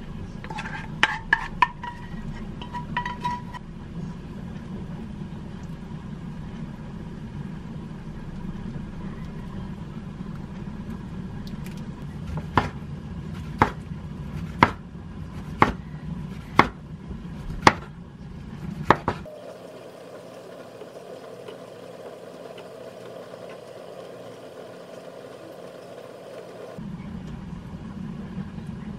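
A kitchen knife slicing a sausage on a wooden cutting board: seven sharp knocks of the blade on the board, about one a second, in the second half. Earlier, a few ringing clinks of a utensil against a ceramic baking dish, over a steady low hum.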